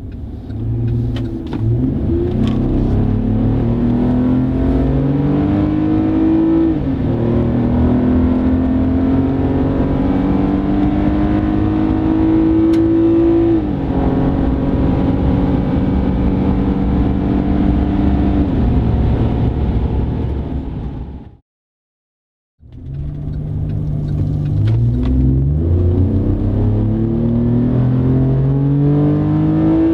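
Chevy Colorado ZR2's 3.6L V6 running through a Flowmaster FlowFX straight-through muffler and dual tailpipes, accelerating hard. The engine note climbs steadily and drops sharply at each upshift, about seven, thirteen and nineteen seconds in. It cuts off for about a second, then a second acceleration run starts and shifts again near the end.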